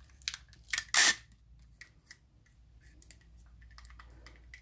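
Sticky tape pulled off a clear plastic handheld tape dispenser and wrapped onto a cling-film-covered cardboard tube, with one short loud rip about a second in and light clicks and crackles around it.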